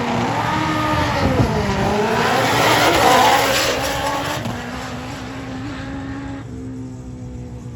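Drag-racing motorcycle engine at full throttle during a run, its pitch dipping and climbing again about a second and a half in, then growing fainter from about four and a half seconds on.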